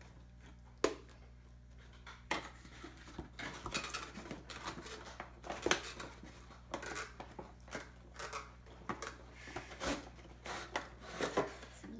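Cardboard packaging being handled: an inner tray scraping as it is worked out of its cardboard sleeve, with irregular rustles, taps and knocks as the box is turned over. There is a sharp click about a second in and a louder knock near the middle.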